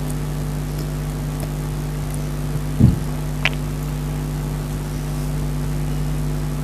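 A steady low mechanical hum, with a soft thump nearly three seconds in and a short click about half a second later.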